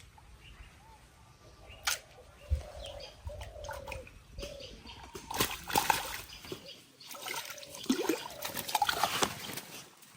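Water sloshing and splashing in irregular bursts, with sharp clicks.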